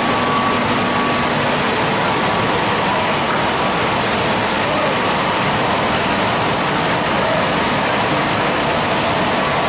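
Spindle veneer lathe running, a steady loud noise with a faint high whine over it.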